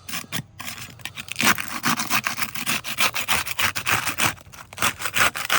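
Putty knife scraping under an asphalt roof shingle, cracking and rubbing as it breaks the adhesive seal strip to unseal the shingle, in quick repeated strokes.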